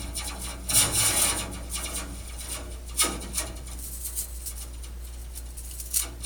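Metal slinky coils scraping and rasping in short bursts, about a second in, again at three seconds and near the end, over a steady low hum.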